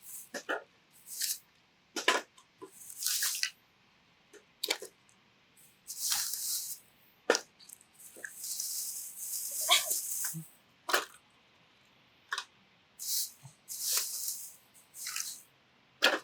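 Irregular short knocks and clicks, with several brief hissy rustles or scrapes between them and quiet gaps in between.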